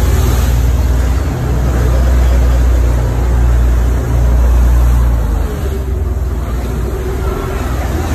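Wind and rough, breaking seawater rushing past a fishing boat under way, a dense noise over a heavy low rumble that eases about five and a half seconds in.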